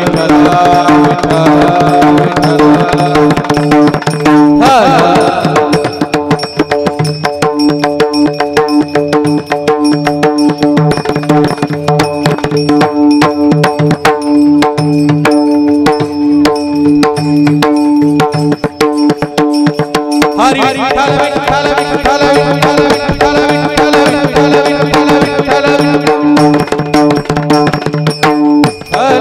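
Warkari devotional music: taal hand cymbals and a drum keep a fast steady rhythm over a held drone, with voices singing the bhajan near the start and again from about two-thirds of the way in.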